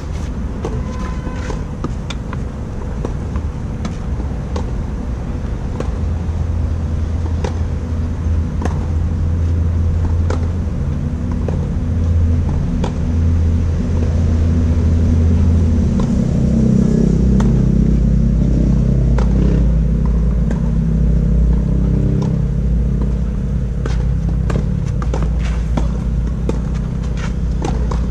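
Tennis balls struck back and forth in a rally on a clay court, sharp short hits every few seconds. Under them runs a loud low engine-like rumble that grows louder about halfway through.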